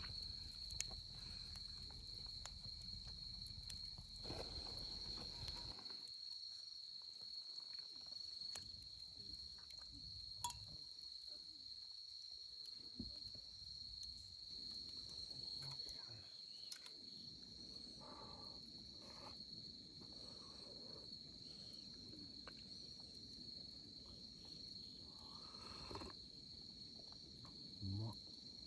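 Crickets trilling in a steady, high, continuous chorus, with a few faint clicks over it.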